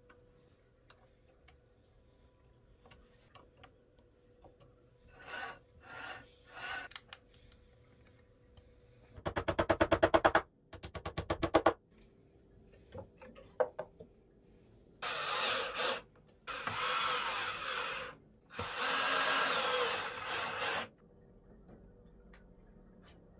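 Hand adjustment of a homemade plywood band saw's tilt mechanism: a quick run of clicks, a shorter second run, then three longer bursts of wood rubbing and scraping.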